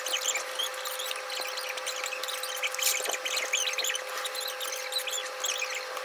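Plastic squeaks and scratches of keyboard switches being worked into and out of the Aula F99's switch plate, with a couple of sharp clicks about three seconds in, over a steady faint hum.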